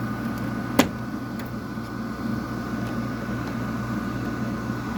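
Steady hum of garage air-conditioning and dehumidifying equipment running, with the air conditioner's compressor off, plus a faint steady whine. A single sharp click comes a little under a second in.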